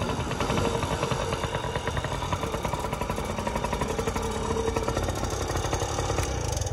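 Yamaha PW50's 49cc two-stroke single-cylinder engine running at low throttle after being eased off, a steady rapid putter as the small dirt bike rolls slowly.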